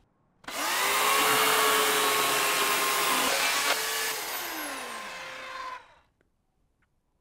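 Corded electric chainsaw whining up to speed about half a second in and running while cutting through a wooden board. Its pitch then slides down as the motor winds down, stopping about six seconds in.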